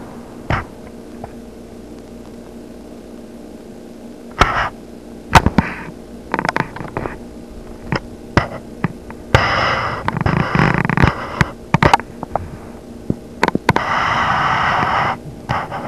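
Handling noise over a steady low hum: scattered clicks and knocks, with two longer rushes of hiss, one about halfway through and one near the end.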